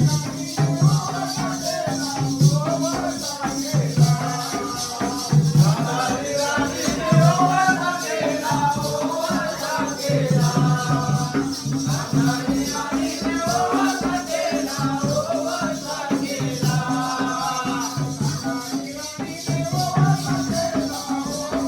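Jakhadi folk song: a man singing over a repeating dholki drum beat and steady high jingling percussion.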